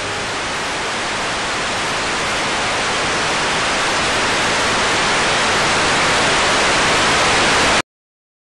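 Analogue television static: an even hiss of white noise, growing steadily louder, then cutting off suddenly near the end.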